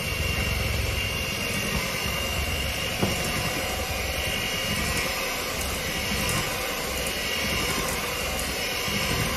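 Electric hand mixer running steadily, its beaters whirring through cake batter in a glass bowl, with a steady high whine from the motor.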